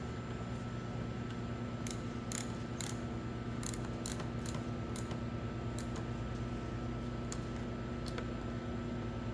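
A run of sharp, irregular clicks, a few a second for several seconds, from hand work reassembling a generator's air cleaner, over a steady low hum.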